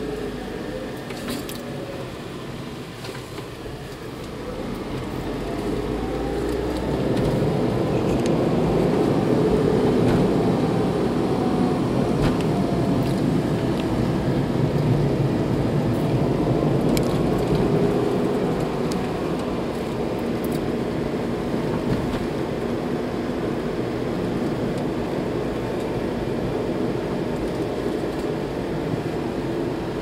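Car driving, heard from inside the cabin: engine and tyre noise growing louder a few seconds in as the car picks up speed, then holding steady.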